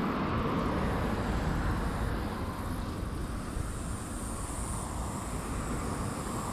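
Steady road traffic from a busy road, an even rush of passing cars, easing a little about two seconds in.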